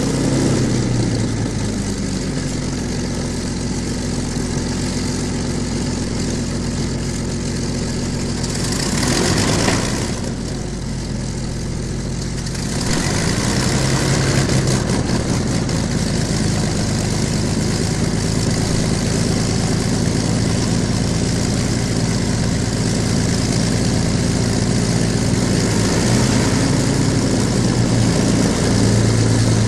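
A de Havilland Mosquito's twin Rolls-Royce Merlin V12 engines running at idle, with a brief surge about nine seconds in. From about thirteen seconds the engines run louder and steadier.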